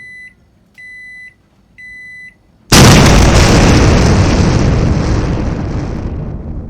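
Three short electronic beeps about a second apart, then a sudden loud explosion that dies away slowly over about four seconds.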